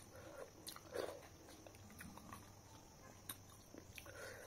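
Faint mouth sounds of a person eating with her fingers: quiet chewing and a few soft smacks and clicks.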